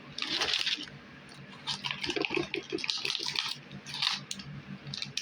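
Crinkling and rustling of packaging being handled, in several irregular bursts, over a faint steady low hum.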